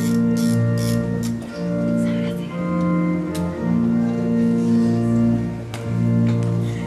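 Organ music: full held chords that change about every second, in a slow, stately progression.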